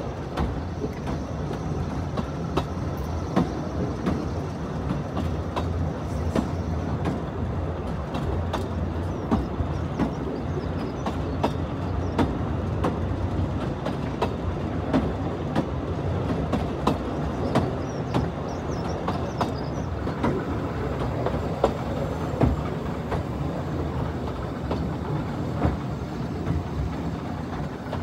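Narrow-gauge train running, heard from an open coach: a steady rumble of the carriages on the track with frequent sharp clicks of the wheels over the rail joints.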